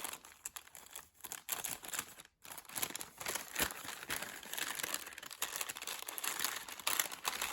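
Small paper bag being crinkled and torn open by hand: a dense, crackly rustling with a short pause about two and a half seconds in.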